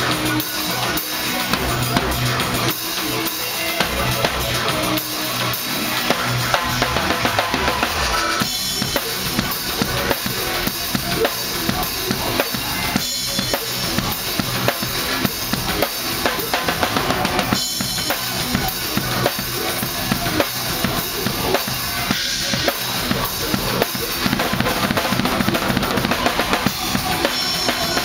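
Drum kit played during a soundcheck: bass drum, snare and cymbals in a busy, continuous pattern.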